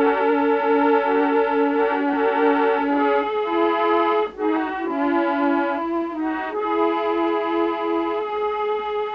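Harmonium music: a slow melody of repeated, held reedy notes over a sustained drone note, with a brief break a little over four seconds in.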